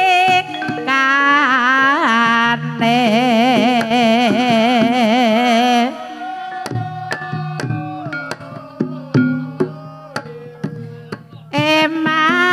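Banyumasan gending: a sinden sings a long, ornamented phrase with wide vibrato over Javanese instrumental accompaniment. About six seconds in, the voice drops out, leaving struck melodic tones and sharp hand-drum strokes, and the singing returns near the end.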